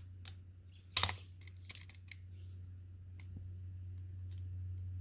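Metal jumper-cable clamps being handled and clipped onto battery terminals: a sharp snap about a second in, then several lighter clicks, over a steady low hum.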